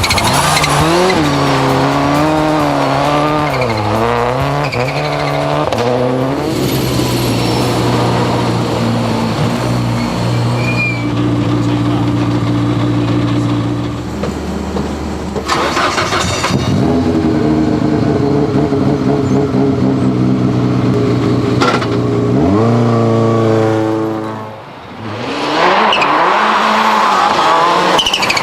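Subaru Impreza World Rally Car's turbocharged flat-four engine driven hard on a snow test, revs rising and falling repeatedly, with a steady spell midway and a steep climb in pitch near the end.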